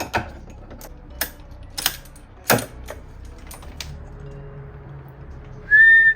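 A few sharp clicks and knocks of hand work on the engine bay during fuel injector removal, over faint background music; a short, loud, high-pitched beep sounds near the end.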